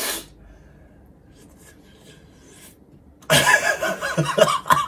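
A short breathy burst at the start, then about three seconds in a man's loud, rough burst of laughter lasting about a second and a half.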